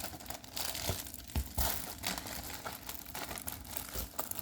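Plastic packaging of a diamond painting kit crinkling as it is handled, in irregular crackles.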